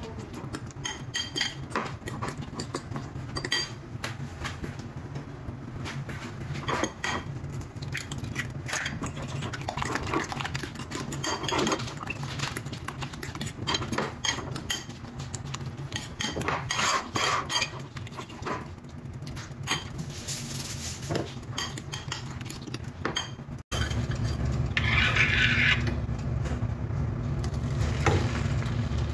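Metal spoon beating raw eggs in a ceramic bowl: quick, irregular clinks and taps of the spoon against the bowl. Near the end, after a break, the beaten egg is poured from the bowl into a frying pan over a steadier, louder background hum.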